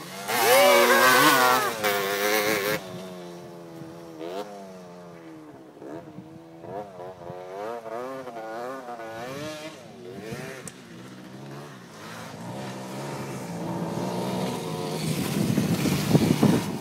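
Off-road dirt bike engines revving. One bike passes close about half a second in, its engine note rising and falling loudly for about two seconds, then engines rev up and down further off. A Yamaha WR250F passes close near the end, growing louder.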